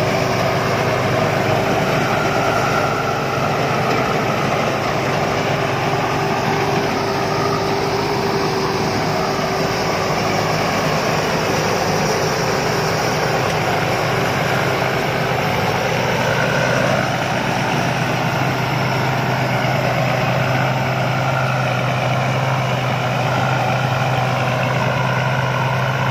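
Rice combine harvester running steadily in the field, its diesel engine and threshing machinery making a continuous dense mechanical noise. A lower engine hum grows stronger from about seventeen seconds in.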